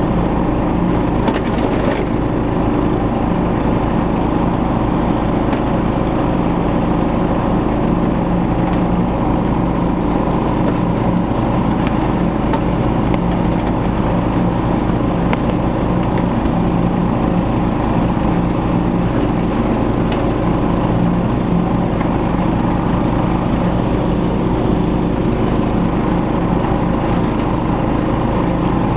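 The engine of an old Snapper SR1030 lawn tractor running steadily while mowing, with the blades cutting grass. The engine note holds an even pitch and level throughout.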